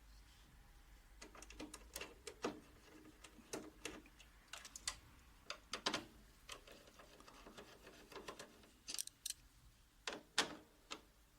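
Irregular small clicks and taps of a screwdriver on screws and the copier's plastic gear cover as the three cover-plate screws are taken out, with a sharper cluster of clicks near the end.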